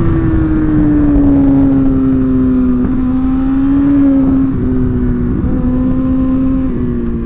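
Sport motorcycle's inline-four engine running at steady high revs while riding, its pitch easing slowly down and dipping in small steps a few times, over a rush of wind noise.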